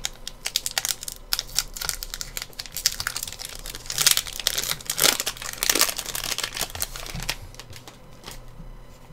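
Plastic-foil wrapper of an Upper Deck hockey card pack crinkling and tearing as it is opened by hand, in irregular crackles that are loudest around four to six seconds in and die down near the end as the cards come out.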